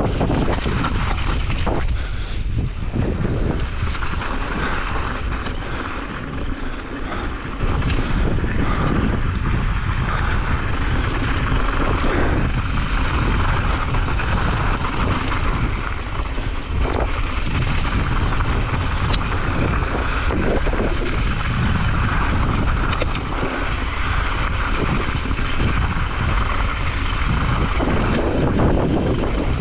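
Wind rushing over the action camera's microphone, with mountain bike tyres crunching over loose gravel and the bike rattling on a fast downhill run.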